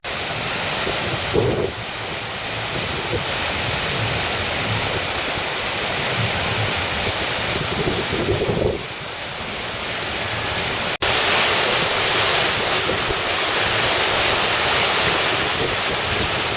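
Outdoor water fountain running, a steady rush of falling and splashing water. Two-thirds of the way through it cuts out for a moment and comes back louder and brighter.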